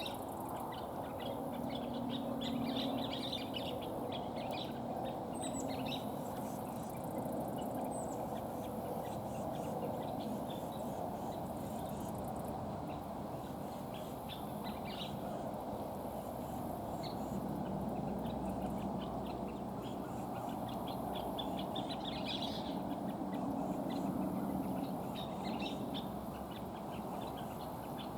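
Scissor-tailed flycatchers calling in scattered bursts of rapid, sputtering chatter, which the uploader hears as alarm at a nearby American kestrel. A steady low background hum runs under the calls.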